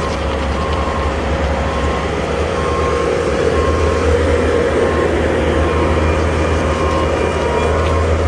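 Skid steer's diesel engine running steadily under load, with its backup alarm beeping at an even pace as it reverses.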